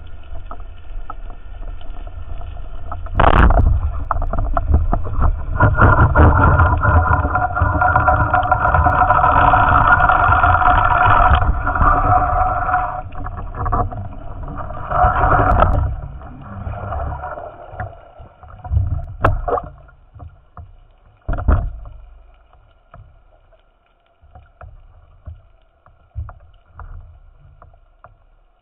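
Water rushing and bubbling against an underwater camera housing as the spearfisher swims up to the surface, with a sharp knock about three seconds in; it grows loud for about twelve seconds, then thins to scattered splashes near the surface.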